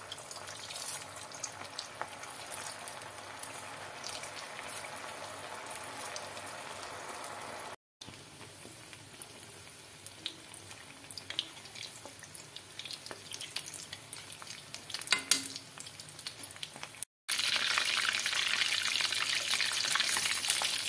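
Potato-and-paneer koftas deep-frying in hot oil in a metal kadhai: a steady sizzle with small crackles. It cuts out briefly twice, and after the second break the sizzle is louder and fuller, with more balls in the oil.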